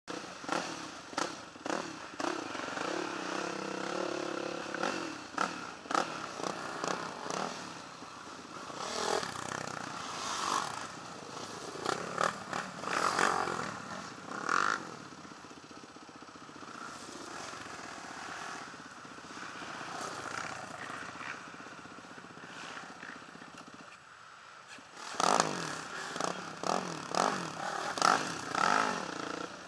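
Race ATV engine running over a rough dirt trail with clattering and scraping, dropping to a quieter stretch midway while the quad is stopped. About 25 seconds in it turns loud again as another racer's quad revs past close by.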